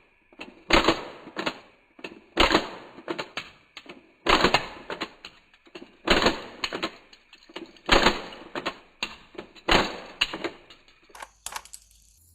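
Plastic toy Glock pistol being fired over and over, its blowback slide snapping back and forth: each shot is a loud sharp clack followed by a few smaller plastic clicks, about six times at an even pace of roughly one every two seconds, with a few lighter clicks near the end.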